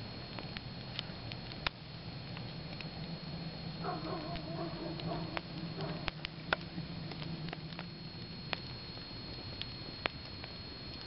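Wood fire of burning logs crackling: irregular sharp pops and crackles over a steady hiss, the loudest pop a little past the middle.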